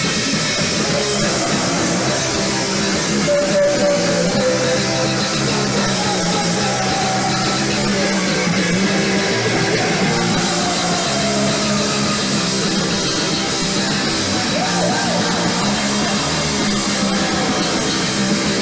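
Live rock band playing loudly and steadily: electric guitar over a drum kit, with some sliding guitar notes.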